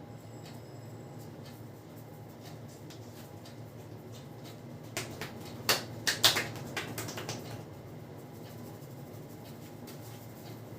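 A quick cluster of sharp clicks and slaps from the barber's hands during a head and neck massage, about halfway through, the loudest two about half a second apart, over a steady low background hum.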